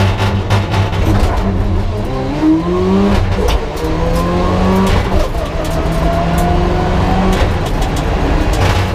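Mitsubishi Lancer Evolution IX rally car's turbocharged two-litre four-cylinder engine heard from inside the cabin. After about two seconds of low, uneven running it accelerates hard, climbing in pitch through the gears with an upshift about every two seconds.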